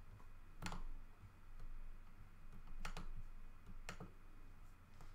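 A handful of sharp, scattered clicks from a computer keyboard and mouse while an article is being pulled up, three of them louder than the rest, over a faint low steady hum.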